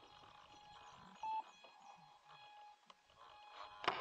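Quiet, faint steady electronic whine from the electric RC floatplane's speed controller and brushless motor, with a single short beep about a second in. Near the end there is a click and the motor starts to spin up.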